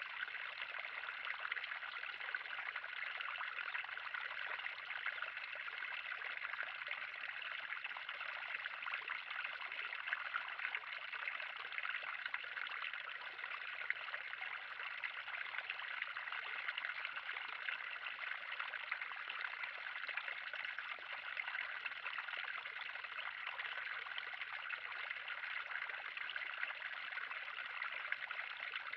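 Water pouring and trickling steadily into a garden pond, with a continuous splashing flow.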